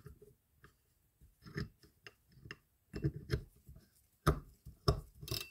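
Irregular small clicks and knocks as the spool of a Penn Spinfisher 550SS spinning reel is fitted back onto the reel by hand, the reel's parts tapping and seating against each other.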